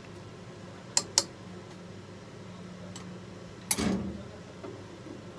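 Kitchenware knocking: two quick sharp clicks about a second in, then a louder clatter near the end, over a steady low hum.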